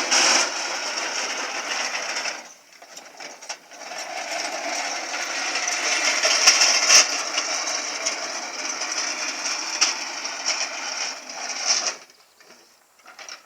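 Lawn mower running with a steady whirr. It cuts out about two and a half seconds in, starts again about a second later, and runs on until near the end.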